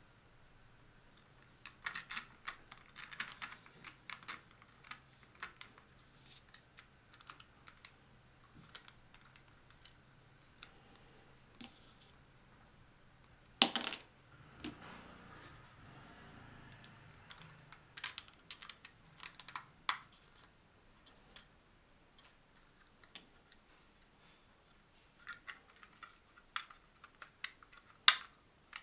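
3D-printed plastic clock parts clicking and clattering as they are handled and fitted together, in scattered bursts of light clicks. A sharper snap comes about halfway through and another near the end.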